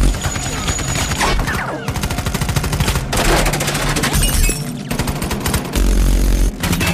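Long bursts of rapid automatic machine-gun fire in a film action sound mix, broken by brief pauses about three and five seconds in.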